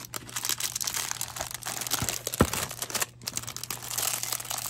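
Clear plastic packaging crinkling as it is handled and opened by hand: a dense run of small crackles that eases off briefly about three seconds in.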